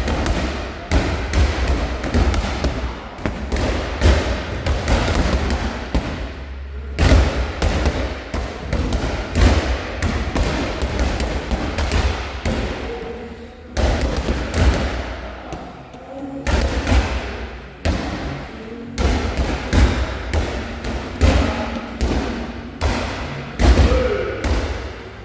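Medicine balls thudding again and again as several people throw and catch them, the impacts coming irregularly and overlapping.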